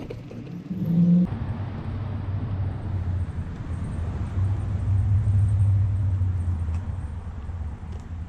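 Low rumble of motor vehicle traffic on the street, growing louder about halfway through and easing off near the end.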